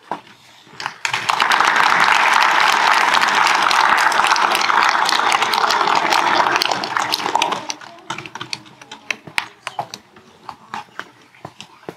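Audience applauding, with dense clapping from about a second in that thins to scattered claps after about seven seconds and dies away near the end.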